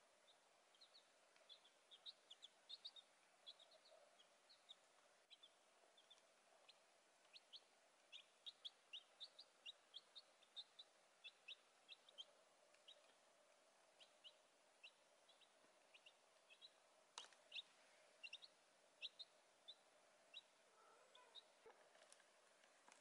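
Young chicks peeping: a string of short, high chirps, several a second, thinning out in the second half, over a faint steady hum.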